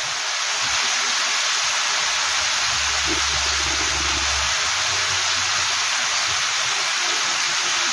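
Breaded chicken pieces deep-frying in a large pan of palm oil: a steady, dense sizzle of oil bubbling hard around the pieces, partway through their roughly eleven-minute fry.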